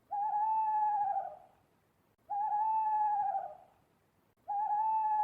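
Owl hooting: three long, even hoots at a steady pitch, about two seconds apart.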